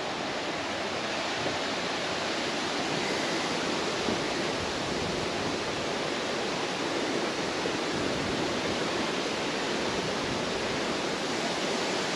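Steady rushing wind noise, even throughout with no distinct events.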